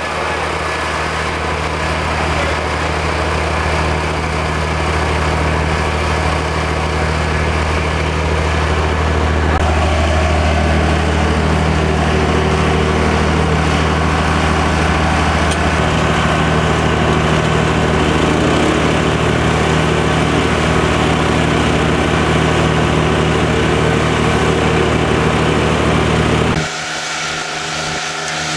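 An engine running steadily with a deep hum. Near the end it cuts off abruptly and a lighter, different background sound takes over.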